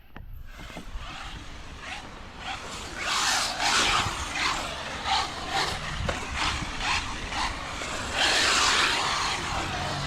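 Arrma Vorteks 223S 3S brushless RC truck driving on wet concrete, its tyres hissing through standing water, with two louder surges about three and eight seconds in.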